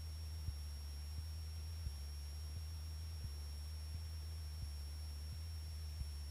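Deep, muffled drone of the Cessna's single piston engine and propeller in cruise, steady throughout, with faint ticks about every 0.7 seconds and a thin, steady high whine.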